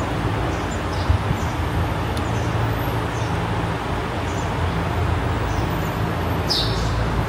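Steady low background rumble with a few faint, short high chirps.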